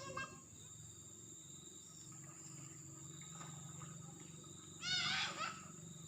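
Insects droning steadily on high thin notes. Near the end comes a short, loud call of quick repeated rising-and-falling notes.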